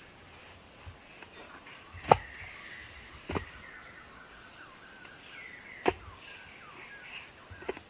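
Four sharp knocks at irregular intervals, over birds chirping in the background.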